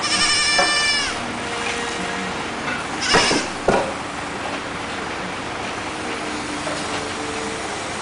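Kid goat bleating once, a high call lasting about a second that drops slightly at the end. About three seconds in, a short noisy burst followed by a sharp knock.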